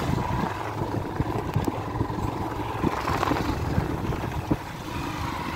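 Motorcycle engine running steadily while riding over a bumpy dirt track, with frequent short knocks and rattles.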